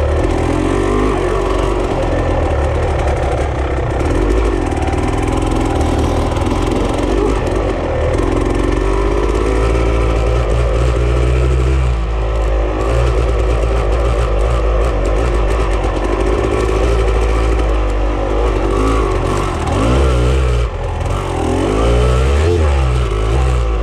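Off-road vehicle engine running while riding, revving up and down several times, with the revs rising and falling most clearly about halfway through and again near the end.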